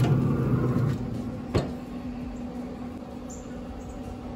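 Steady hum of a Pit Boss pellet grill's fan running, a little louder in the first second, with a single sharp click about one and a half seconds in.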